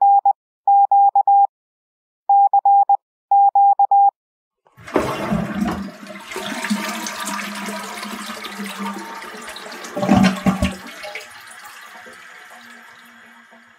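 Four quick groups of short beeps at one steady pitch, then a toilet flushing: a loud rush of water that surges again about ten seconds in and drains away near the end.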